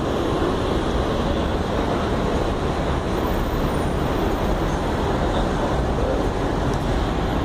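Steady street traffic noise with a city bus's engine running close by.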